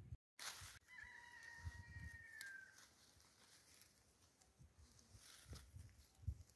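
A single faint, distant rooster crow, starting about a second in and lasting nearly two seconds, its pitch dropping slightly at the end, over quiet background with soft low thumps.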